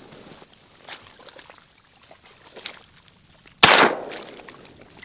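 A single shotgun shot about three and a half seconds in, fired at a bufflehead, with a short echo dying away after it.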